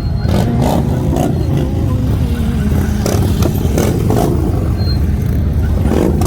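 Car engine running close by: a steady low rumble with short irregular clatters.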